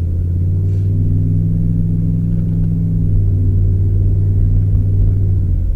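Vehicle engine droning at a steady pitch while driving, heard from inside the cabin, with a slight change in pitch about three seconds in.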